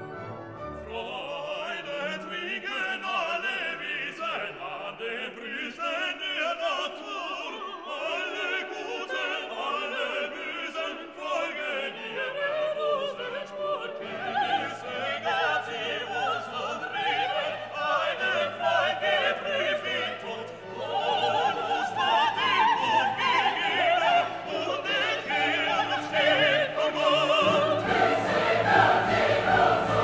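Background music: classical-style operatic singing over an orchestra, growing fuller about halfway through and louder near the end.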